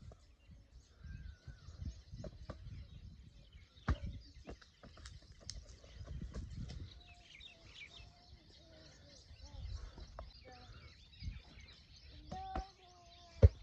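Birds chirping over wind rumbling on the microphone, with a few sharp thumps, the loudest near the end.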